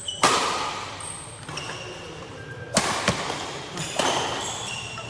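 Badminton rackets smacking a shuttlecock in a fast doubles rally, about four sharp hits that ring on in a large hall, the loudest about a quarter-second in. Thin high squeaks, typical of shoes on the court mat, come between the hits.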